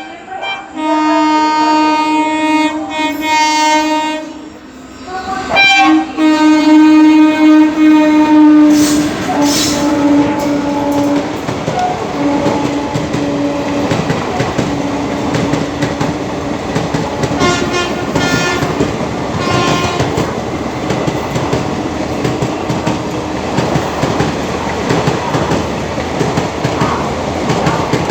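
WAP-4 electric locomotive's twin-tone horn sounding in two long, loud blasts, then the express train running through at speed, its wheels rattling and clattering over the track.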